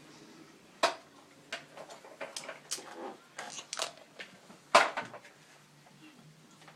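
A series of light clicks and knocks of small hard objects being handled. There is a sharper knock about a second in and the loudest one a little before five seconds in.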